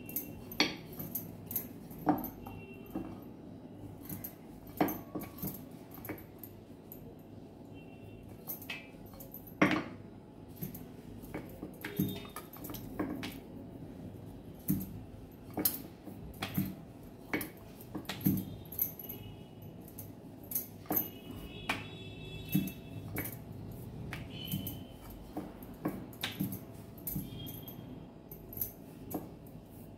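Irregular light clicks and taps of kitchen utensils and dishes during hand-shaping of karanji pastry, with short high whines now and then.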